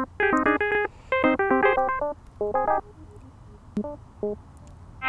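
Ableton Operator synthesizer playing short, separate notes in an irregular generative sequence, randomly gated in pitch and timing, with old video-game-like tones. The notes come thick and fast for about three seconds, then thin out to a few single notes.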